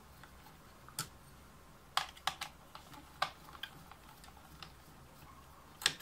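Irregular sharp plastic clicks and taps, about eight, from hands working among the keys and case of a Microsoft Ergonomic 4000 keyboard while its small screws are taken out. The loudest clicks come about two seconds in and just before the end.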